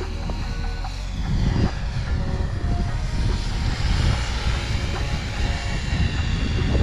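Align T-Rex 500X electric RC helicopter in flight, its motor and rotor whine sliding in pitch as it passes, and growing louder about a second and a half in.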